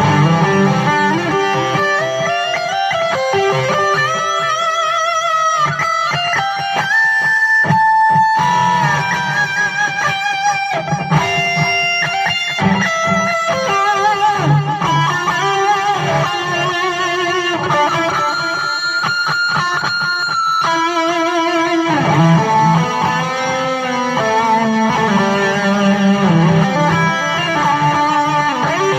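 Electric guitar played through an amplifier on an overdriven lead tone, playing a melodic solo line with held notes and vibrato.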